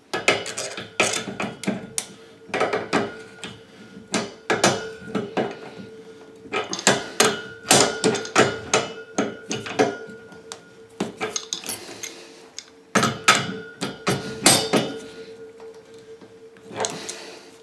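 Repeated metallic clicks and knocks of a wrench gripping and turning a chrome radiator valve's compression nut, tightening it onto the copper pipe so the olive seals. They come in irregular clusters, sometimes several a second, as the wrench is reset for each short turn.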